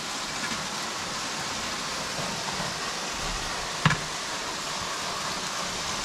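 Steady rushing hiss of a waterfall splashing down, with one sharp knock about four seconds in.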